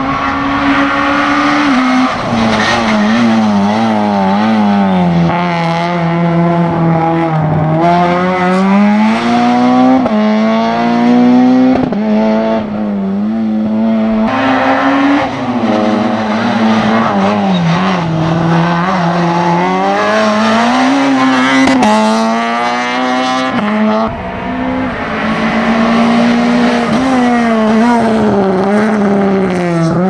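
Hatchback slalom race car engines at high revs. The pitch climbs and drops again and again as the cars accelerate, lift off and brake through the cone chicanes.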